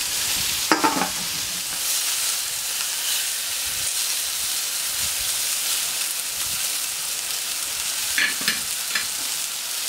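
Spatchcocked poussins and diced celery sizzling steadily on a hard-chrome steel gas plancha. There is a sharp clatter about a second in and a few light clicks near the end.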